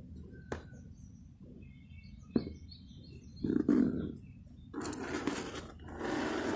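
Hands moving paintbrushes and small objects on a table: a sharp click, then a knock, then scraping and rustling as things are lifted and slid across the surface. Birds chirp faintly in the background.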